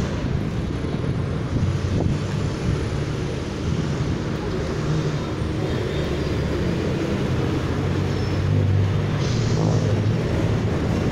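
Steady low rumble of street traffic and running vehicle engines.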